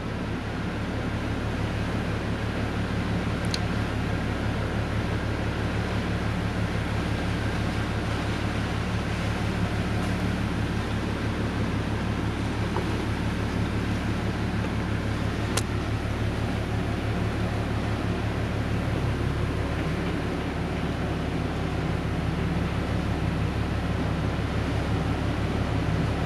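Sakurajima car ferry's engines running with a steady low hum as the ship moves in toward its berth, over a wash of water and wind noise.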